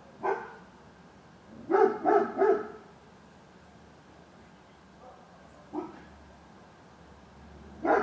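A dog barking out of sight: a single bark, then three quick barks about two seconds in, then single barks near six seconds and at the end.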